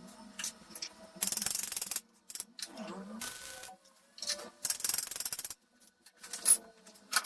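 Homemade belt grinder working in several short bursts of rasping, abrasive noise, the longest under a second, like passes of metal against the moving belt.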